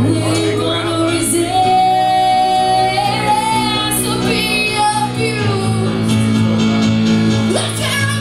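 Music with a female voice singing a held, wavering melody over sustained accompaniment.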